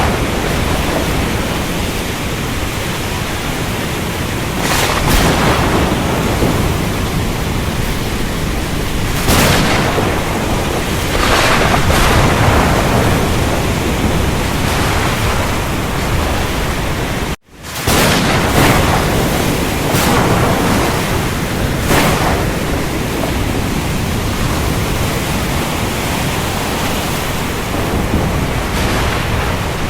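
Steady heavy rain hiss with thunder rumbling underneath and several louder surges. About seventeen seconds in the sound cuts out abruptly for a split second, then resumes.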